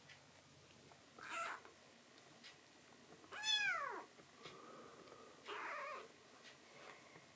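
A young black-and-white tuxedo kitten meowing once: a single short cry, more than half a second long, about halfway through, that rises briefly and then slides down in pitch.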